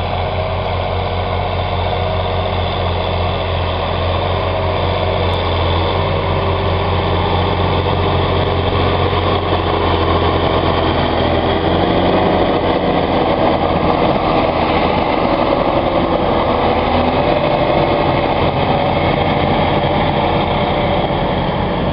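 John Deere 6930 tractor's six-cylinder diesel engine running steadily under load while pulling a reversible plough, getting a little louder as the tractor comes close. The engine note sags briefly past the middle.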